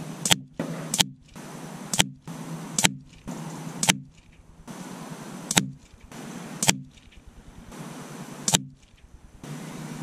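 A series of sharp single cracks, about eight in ten seconds at uneven spacing: .177 air rifle pellets striking a paper target on a wooden board, each hit a separate shot.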